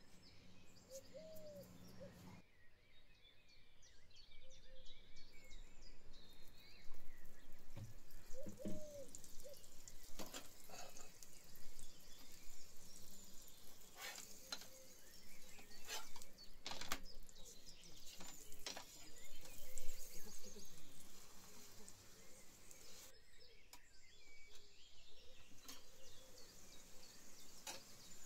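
A recorded dawn chorus of songbirds chirping, with scattered sharp clicks throughout.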